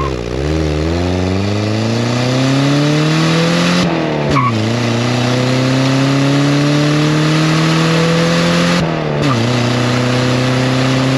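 Exhaust of a 1974 Toyota Celica ST's carbureted 2-litre 18R-C four-cylinder, heard at the tailpipe under hard acceleration. The engine pulls up in revs, drops at a shift about four seconds in, climbs again, and shifts once more about nine seconds in. A short chirp comes near each shift.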